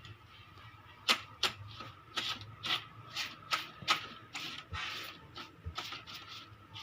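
A brush scrubbing dust out of an opened keyboard's insides: quick, irregular bristle strokes with sharp flicks, about two a second.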